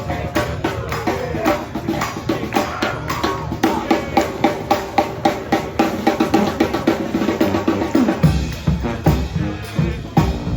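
Live brass band playing: snare and bass drum drive a steady beat under the horns. About eight seconds in, the low bass notes come in much stronger.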